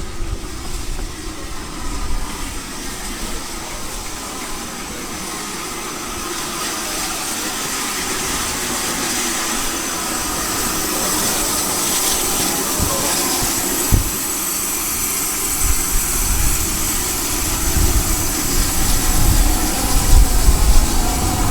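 A train approaching and running through the station, its rumble and high rail hiss building steadily and loudest near the end.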